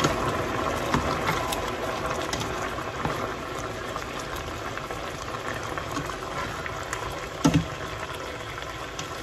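Chicken wings and black mushrooms braising in oyster sauce, bubbling steadily in a stainless steel pot while a spatula stirs through them, with faint scrapes and a single short knock about seven and a half seconds in.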